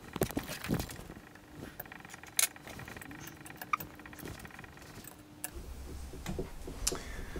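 Scattered small metallic clicks and clinks of screws being fitted by hand into the power drawbar's mounting on a mill's spindle head.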